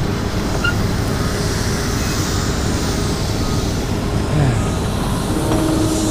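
Steady road noise of an e-bike ride in street traffic: a continuous rumble of wind and rolling tyres.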